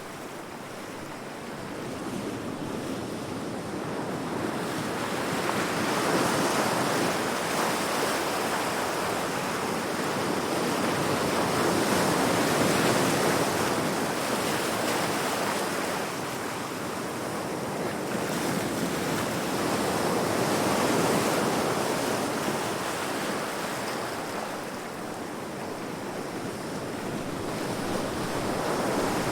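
Heavy ocean waves crashing against rocks: a continuous wash of surf that swells and eases every several seconds.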